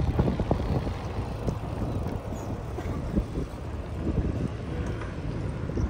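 Wind buffeting the microphone while cycling: a steady low rumble with short gusty bumps throughout.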